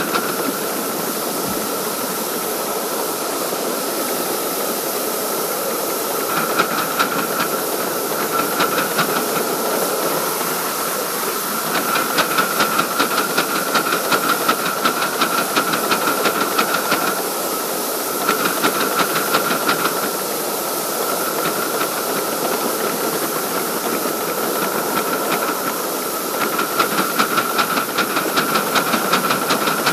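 A 5-inch gauge live-steam model locomotive hissing steam steadily, with stretches of rapid, even beats that come and go.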